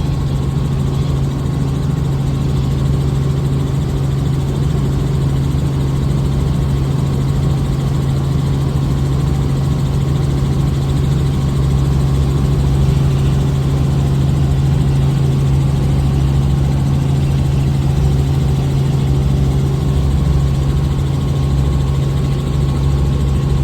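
Helicopter engine and rotors running at a steady pitch, heard from inside the cabin as a constant low drone.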